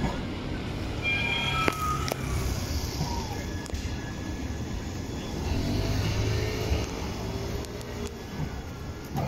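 Siemens Avenio articulated low-floor trams rolling slowly past, a low rumble of wheels on rail and traction equipment that swells in the middle. There is a brief high squeal about a second in and a few clicks.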